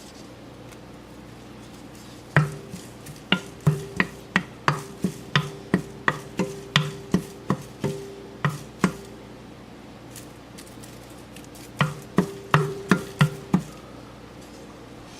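A utensil knocking against a metal pan while curry leaves are stirred in a dry roast, in a run of sharp strikes about three a second, each with a brief metallic ring. A second, shorter run comes near the end, over a steady low hum.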